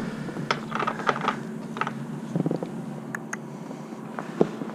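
Scattered metal clicks and clinks of sockets being swapped on a quarter-inch ratchet, with a short run of close clicks about two and a half seconds in.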